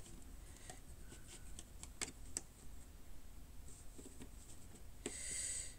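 Light plastic clicks and taps of building bricks being handled and pressed together, a few single clicks spread out, with a short rustle near the end.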